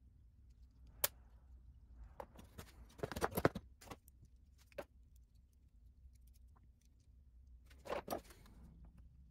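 Steel multitool pliers clinking and clattering as they are picked up and set down on a sheet-metal workbench: a sharp click about a second in, a burst of metal clatter around three seconds in, and another near the end.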